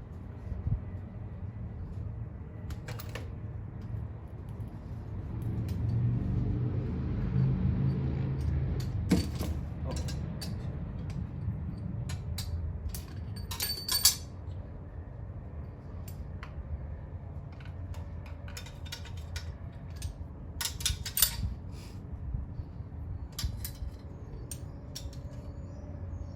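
Scattered metal clinks and knocks of tools and parts being handled while a Ford 302 Windsor V8 is taken apart, with a low rumble swelling about six seconds in.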